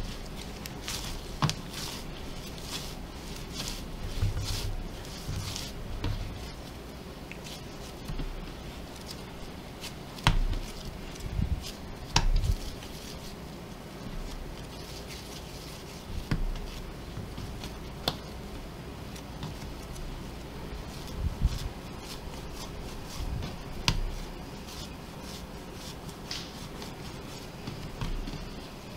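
Hands working a soft dough on a wooden board, dividing and rolling it into balls: scattered soft knocks and slaps of dough and hands against the board, over a steady low hum.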